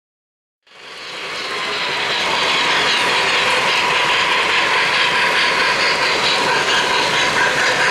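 O-gauge model steam locomotive and hopper cars running on three-rail track: a steady running noise that fades in about a second in.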